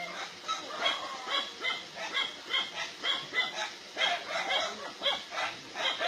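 Dogs barking and yelping over and over, about two to three short barks a second without a break: alarm barking at a Sumatran tiger that has come close.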